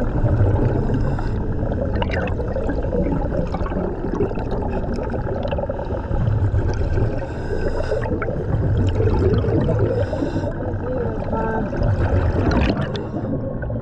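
A commercial diver's breathing heard inside the diving helmet underwater: exhaust bubbles gurgling and rumbling in surges every few seconds, with short hissing inhalations from the regulator between them.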